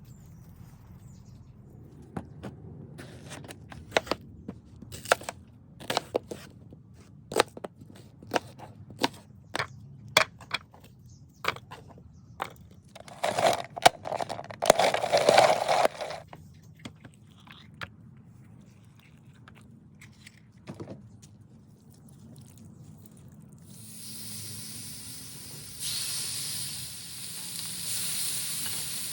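Kitchen prep knocks and clicks at an uneven pace, with a few seconds of scraping past the middle. About five seconds before the end, food starts sizzling steadily on the flat-top griddle.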